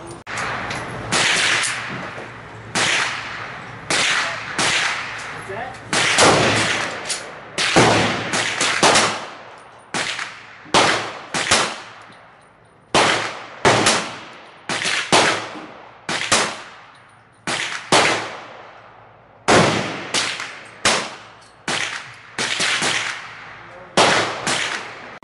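A SIG-Hammerli P240 target pistol firing .32 S&W Long wadcutter rounds: about thirty shots in quick strings, roughly half a second to a second apart. Each shot is a sharp crack followed by a short echo.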